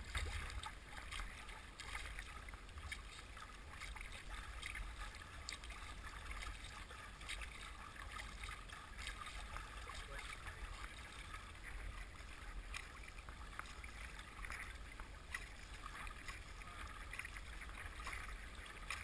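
Water rushing and splashing against the bow of a small paddled boat running down a fast, high river: a faint, steady wash over a low rumble, with a few scattered clicks.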